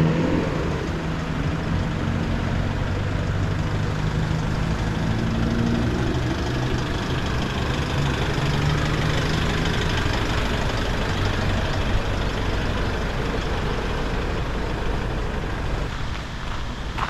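Car engine running with steady road noise while driving; the engine hum fades about halfway through, leaving mostly road noise.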